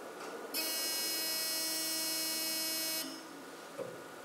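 KONE traction elevator's landing buzzer sounding one steady electric buzz for about two and a half seconds, starting about half a second in and cutting off sharply: the arrival signal as the car reaches the floor.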